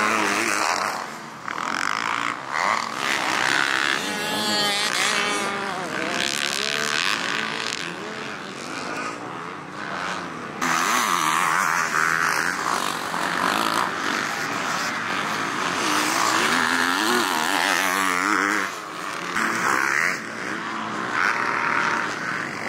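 Motocross dirt bike engines being ridden hard, pitch rising and falling as the throttle opens and closes. The sound changes abruptly about eleven seconds in.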